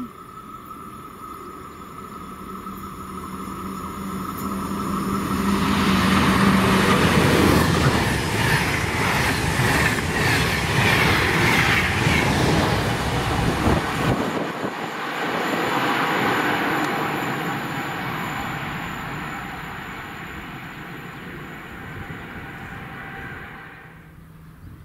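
A DB Class 101 electric locomotive hauling an InterCity train passes at speed. The rush of wheels on rails builds over several seconds and is loudest for about eight seconds as the train goes by, then eases as the coaches roll past and fades away.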